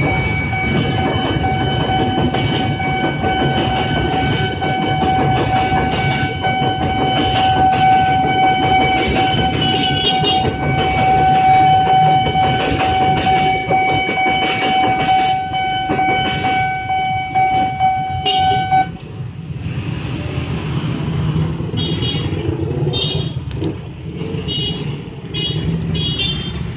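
Level crossing warning siren (Nippon Signal's original NS unit) sounding one steady high tone while a KRL commuter electric train rumbles across. The siren cuts off suddenly about 19 s in, and road traffic follows with several short horn toots.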